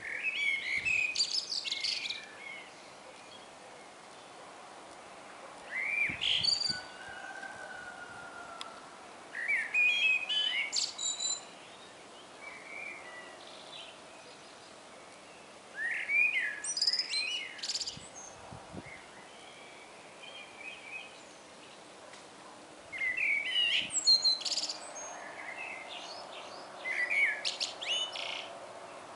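Eurasian blackbird singing: six short warbled phrases with quick glides and high twittery notes, separated by pauses of a few seconds.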